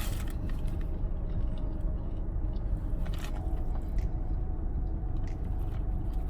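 Biting and chewing of a crispy fried chicken sandwich, with a few short crunches, over a steady low rumble.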